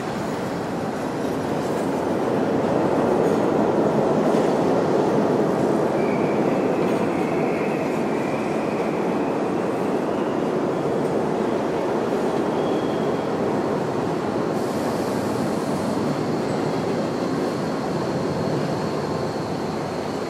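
Subway train running along a station platform: a steady rumble that swells about two seconds in, with faint high wheel squeals in the middle and later part.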